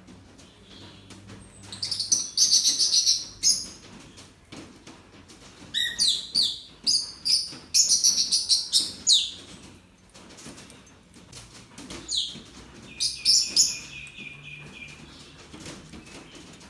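Small birds chirping in three bursts of rapid, high-pitched calls, the last ending in a short held note.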